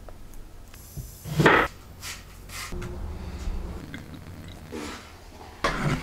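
Close, quiet sounds of hands handling things at a wooden table: yarn and twine, then a ceramic cup. A short, loud rustle comes about a second and a half in and another just before the end, over a low steady hum.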